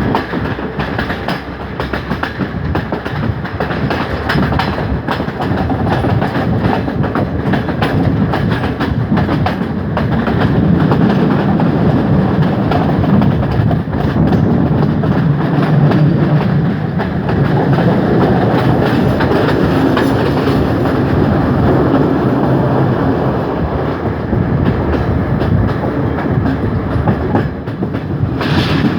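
Colombo–Badulla passenger train running along the track, with a steady rumble and wheels clattering over the rails. It gets a little louder about a third of the way in.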